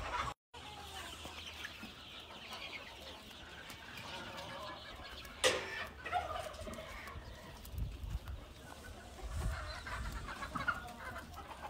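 Chickens clucking in their wire-mesh pens, with one sharper, louder call about five and a half seconds in.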